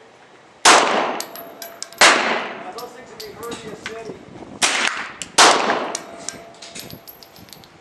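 Four 9mm pistol shots from a Glock 19, each followed by a fading echo. The first two come about a second and a half apart, the last two less than a second apart.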